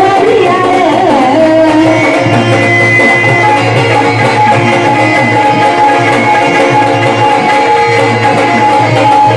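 Marathi devotional folk music, an instrumental passage led by a hand drum with a sustained melody instrument playing over it.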